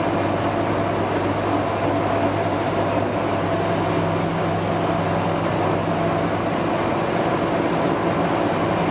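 Steady cabin drone of a Scania K310UB city bus under way: an even engine hum over road noise, heard from inside the bus. A slightly higher hum comes in about three and a half seconds in and fades a few seconds later.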